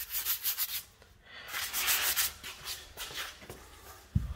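Small paintbrush scrubbing primer onto a plastered door reveal around the hinges: repeated short strokes of the bristles rubbing on the surface. A low thump comes near the end.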